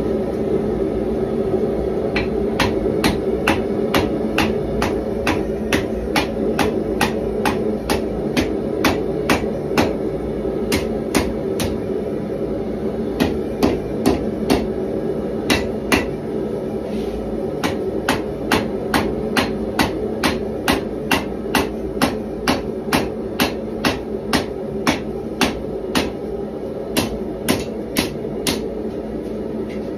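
Hand hammer striking red-hot 1095 carbon steel bar stock on an anvil while forging a knife blade: steady, evenly spaced blows about two a second, with a short break about twelve seconds in.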